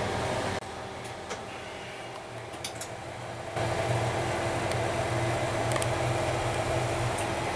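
Steady mechanical drone of running radio equipment, a fan-like rush with a low hum and a few steady tones. It drops quieter about half a second in and comes back louder after about three and a half seconds.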